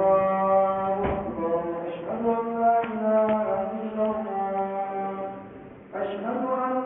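A man's voice chanting in long, drawn-out melodic notes that glide slowly from pitch to pitch, breaking off briefly about six seconds in before starting again.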